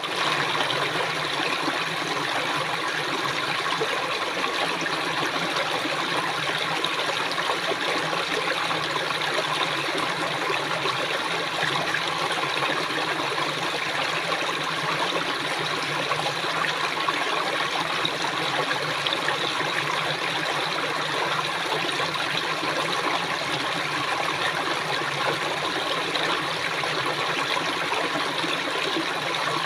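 Water flowing steadily in a stream, an even rushing and babbling that does not change.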